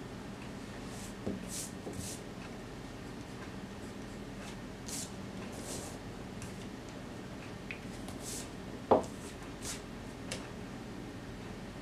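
Graphite pencil sketching on paper: short scratchy strokes come and go over a steady low hum. About nine seconds in, a rubber eraser is set down on the wooden desk with a single sharp knock, the loudest sound here.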